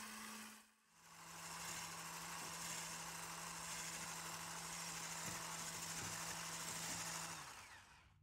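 Electric mixer whisking egg whites and sugar into meringue: a steady motor hum with the whisk hissing through the foam. There is a short break about a second in, after which the hum runs slightly lower, and it stops shortly before the end.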